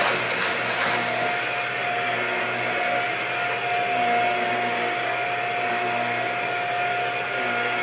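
Upright vacuum cleaner running steadily with a constant motor whine as it is pushed back and forth across a rug.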